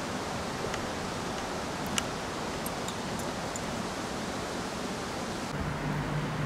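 Steady rushing outdoor background noise with a few light clicks, the clearest about two seconds in. A low steady hum comes in near the end.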